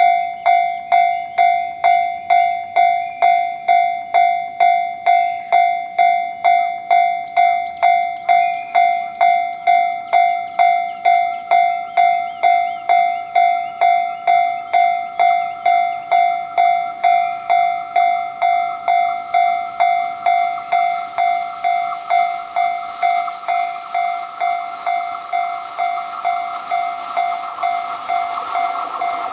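Japanese railway level-crossing warning bell ringing in a steady rhythm, about two strikes a second. From about twenty seconds in, the rushing noise of an approaching train grows under the bell; the train is a container freight hauled by an EF65 electric locomotive.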